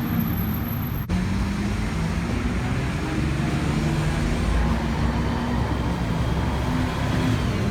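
Steady motor traffic noise, with engines running; the sound jumps at an edit about a second in.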